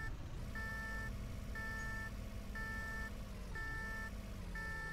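Forklift warning beeper in a VR forklift-driving simulator: a half-second beep repeating about once a second, over a steady low engine hum.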